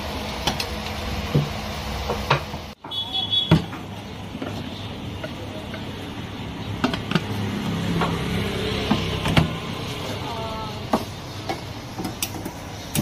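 Metal clinks and knocks of an aluminium momo steamer's tiers and lid being handled and stacked, over a steady rushing background.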